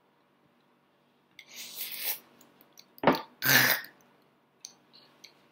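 A child biting and sucking at a peeled lemon with a short hissing slurp. About three seconds in comes a sharp cough-like splutter and a brief grunt, his reaction to the sourness.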